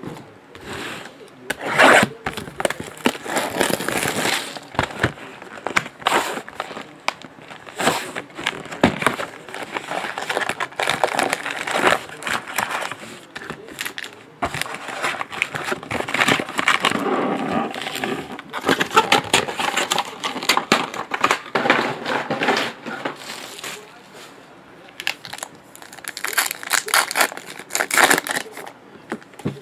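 Foil trading-card packs crinkling and rustling as they are handled, with the cardboard of a hobby box being opened and the packs pulled out and stacked. Irregular crackling, with sharp crinkles all through.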